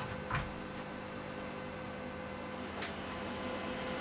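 Steady electrical hum over faint room hiss, with two short faint knocks, one about a third of a second in and one near three seconds in.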